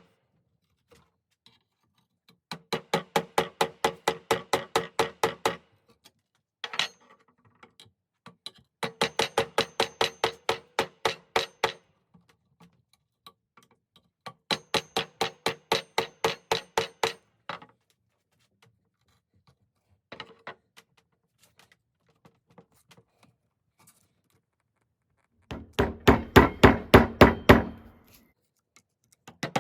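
Runs of rapid, evenly spaced hammer blows on metal, about five a second, each strike ringing at the same pitch. The runs last around three seconds with pauses between, and the last run is the loudest and heaviest.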